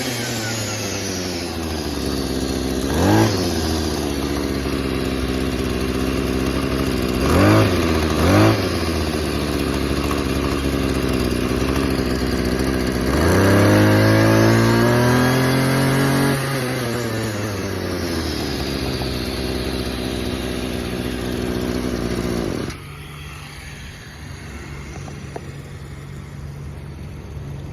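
Tanaka PCG22EASP brush cutter's two-stroke engine idling, blipped briefly three times and then revved for about three seconds before dropping back to idle. The engine cuts off abruptly about five seconds before the end.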